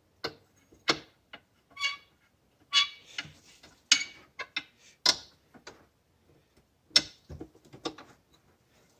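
Irregular clicks, taps and light metallic clinks as a metal door latch is fitted through a drilled hole in a plastic side-by-side door panel and handled, a few of the knocks ringing briefly.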